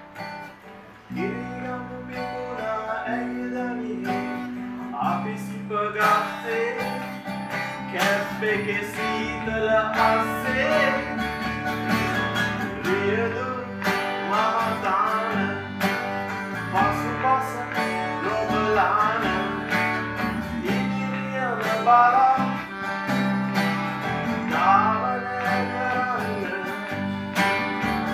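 A small acoustic band playing live: a steel-string acoustic guitar strummed, with bass and held harmonium chords underneath and a man's voice singing the melody. The full band comes in about a second in after a brief quieter moment.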